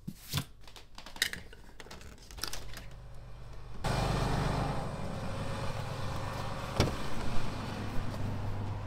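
A few sharp clicks, among them a wall light switch being flicked, then from about four seconds in the steady low sound of a Ram pickup truck's engine running, with one sharp click about two-thirds of the way through.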